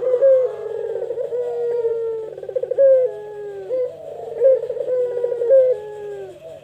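Puter doves (Barbary doves) cooing in long drawn-out coos that overlap one another, several ending with a short upward hitch. This is the long-cooing 'pelung' style kept to lure other puter.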